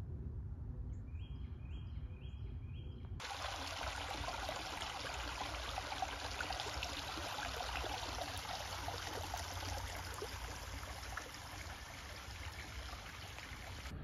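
For the first three seconds, low wind rumble with a small bird chirping a quick run of about four notes; then, after a sudden cut, water trickling and running steadily.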